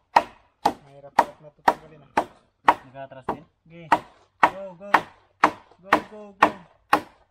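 Bolo knife chopping wood in steady, even strokes, about two a second.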